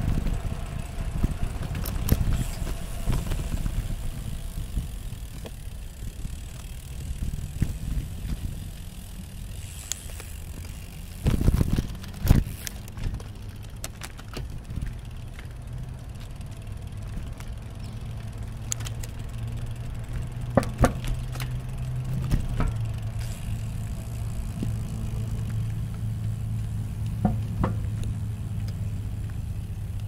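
Brompton folding bicycle rolling along a paved path: steady tyre and wind rumble, with a few rattling knocks over bumps about halfway through and single clicks later. A steady low hum comes in just after the middle and carries on.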